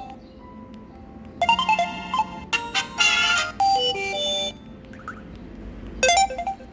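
Samsung Anycall SCH-W120 mobile phone playing short synthesized ringtone melodies through its speaker: one tune for about three seconds, a brief pause, then another tune starting near the end.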